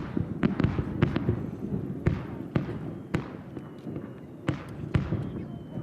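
Aerial fireworks shells bursting in a rapid, irregular string of bangs over a continuous low rumble, the barrage thinning out near the end.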